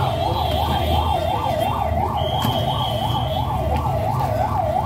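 Electronic siren wailing in a fast yelp, its pitch rising and falling about four times a second, over a low steady rumble. About two seconds in, a higher steady whistle-like tone joins it for about a second.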